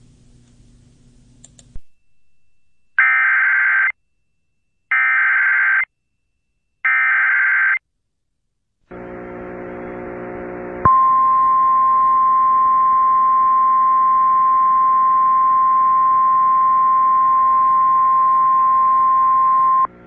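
Emergency Alert System SAME header: three identical one-second bursts of screeching digital data tones, about two seconds apart. After a buzzing hum, a single steady high-pitched alert tone comes in about eleven seconds in and holds for about nine seconds: the NOAA Weather Radio 1050 Hz warning alarm tone.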